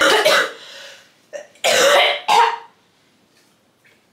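A woman coughing in a short fit, three or four harsh coughs in quick succession, from a lingering cough that has not gone away for about a month.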